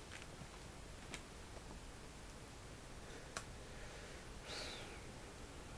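Faint clicks from a cell phone being handled: one about a second in and another a couple of seconds later, then a brief soft rustle, over quiet room tone.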